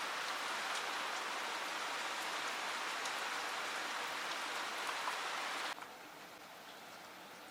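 Heavy rain falling, a steady hiss with scattered drop ticks. Near the end it cuts suddenly to a quieter rain hiss.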